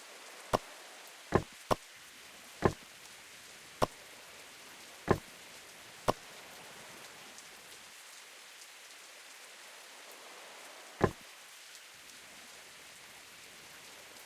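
Steady rain hiss, with about eight loud single drops landing close by at irregular moments, most of them in the first six seconds and one more near the end.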